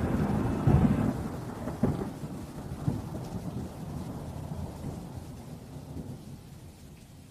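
Thunder rumbling over steady rain, with several low rolling claps in the first few seconds, fading slowly away. The last chord of a song dies out in the first second.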